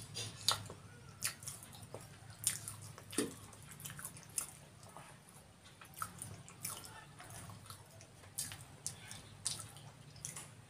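Close eating sounds of samosas being eaten by hand: wet chewing and lip-smacking, heard as many short clicks at irregular intervals, with the fried pastry being torn apart.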